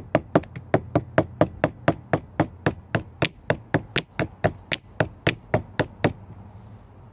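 A piece of quahog shell rubbed back and forth on a flat stone to grind it smooth, a short sharp stroke about four times a second, stopping about six seconds in.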